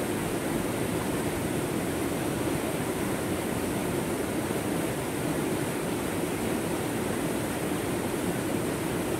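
A fast rocky stream tumbling over a small cascade of boulders: a steady, unbroken rush of water.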